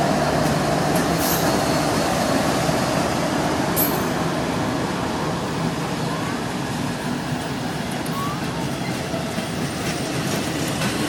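Norfolk Southern train rolling past, a steady rumble of wheels on rail, with a few brief sharp clanks or squeals in the first few seconds.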